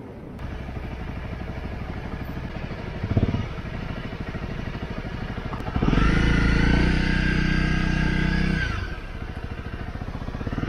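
Honda CRF250L dual-sport motorcycle's single-cylinder engine running steadily while riding on gravel, with a brief knock about three seconds in. About six seconds in the sound jumps to a louder, more pitched engine note at low speed, easing off near nine seconds.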